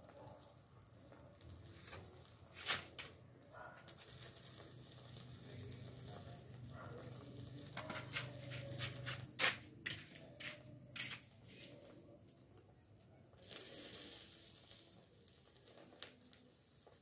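Molten aluminum pouring from a crucible into a termite colony packed in a steel bucket, hissing and crackling with scattered sharp pops. A louder burst of hiss comes about thirteen seconds in.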